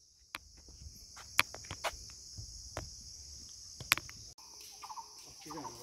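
Steady high-pitched chirring of a chorus of insects such as crickets, with scattered sharp clicks and taps over it, the loudest about one and a half and four seconds in.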